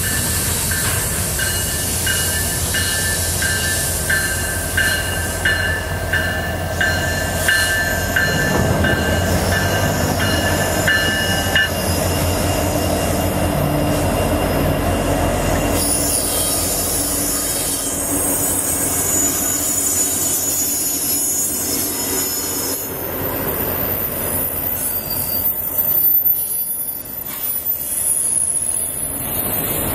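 A Norfolk Southern auto train led by an NS SD70M-2 diesel locomotive passing close by. Its engine rumbles steadily, and a bell rings about one and a half times a second until about 12 seconds in. Then the autorack cars roll past on the rails.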